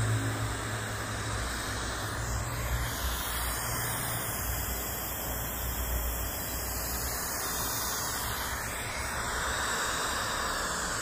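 White noise hissing through PRV 2-inch compression drivers on slim horns, switched back and forth between the phenolic-diaphragm WG2200PH and the polyamide-diaphragm WG2000PY. The tone of the hiss shifts: for a few seconds in the middle the upper mids drop out, and near the end the hiss gets brighter.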